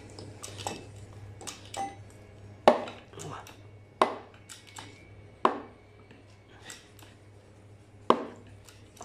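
Steel tools and press parts clinking and knocking while a bushing is centred for pressing on a JCB 3CX, with four sharper ringing metal knocks, the loudest about three and eight seconds in. A low steady hum runs underneath.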